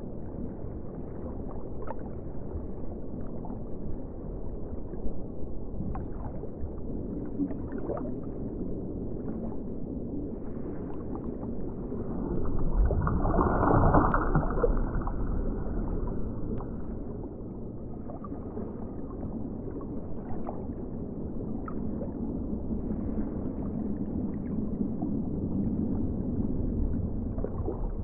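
Underwater ocean ambience: a muffled low rush of water with faint scattered bubbling clicks, swelling louder for a few seconds about halfway through.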